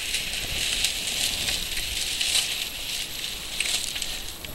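Continuous rustling, with a few faint clicks.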